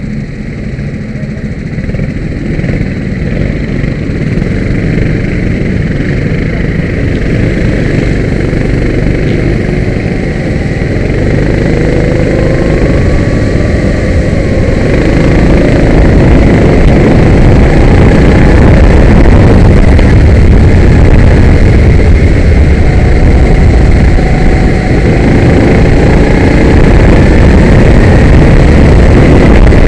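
Kart engine heard from onboard, revs climbing in long rising sweeps as it accelerates, getting louder through the second half.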